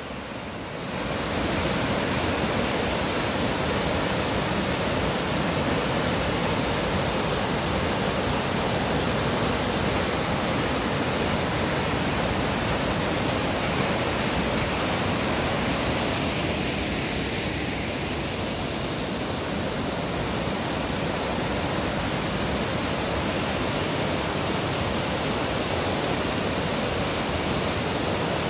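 Rain-swollen creek rushing over boulders in white-water rapids: a loud, steady roar of water, high after a downpour. It comes up about a second in and then holds even.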